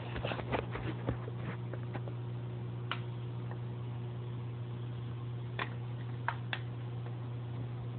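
A steady low hum with scattered short clicks and taps, several in the first second or so and a few more later on.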